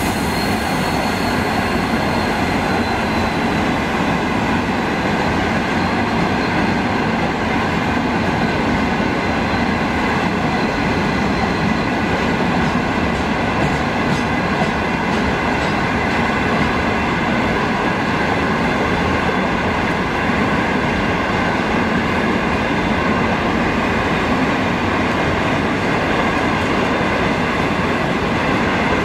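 Loaded ballast hopper wagons of a freight train rolling past at steady speed: a continuous rumble and clatter of steel wheels on rail, with a steady high-pitched squeal ringing above it.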